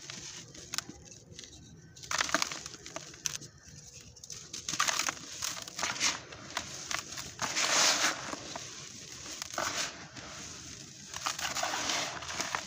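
Hands crunching and raking through dry crumbled sand-cement in a plastic bucket, crushing small clods and letting the dusty grit pour and sift back down. The sound comes as several separate bursts of crunching and hissing with gritty clicks in between.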